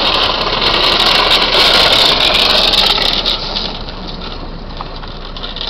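Drift trike's hard plastic rear wheels sliding and rolling on asphalt as it goes past, a loud steady hiss that fades about three and a half seconds in.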